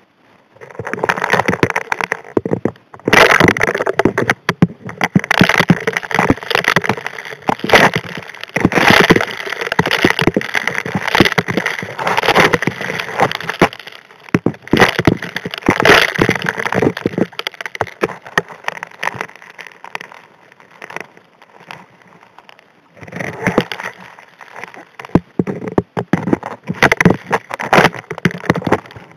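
Gravel and small rocks rattling and clashing against the steel suction nozzle of a Model 625 HD P hand gold dredge as it vacuums the riverbed, heard through an underwater microphone. The knocking is dense for the first half, thins out about halfway through, and picks up again a few seconds before the end.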